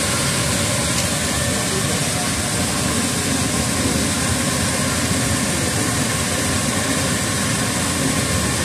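Spectra 350 metallographic polishing machine running steadily: a constant, even machine noise with a strong hiss on top.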